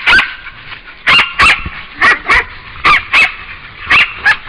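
Hunting dog barking loudly and repeatedly, about ten barks, many in quick pairs about once a second: a pig dog baying at a wild hog.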